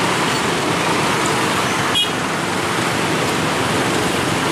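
Dense road traffic, mostly motorcycles with some cars, passing over a level crossing: a steady mix of small engines and tyre noise, with a short high-pitched blip about two seconds in.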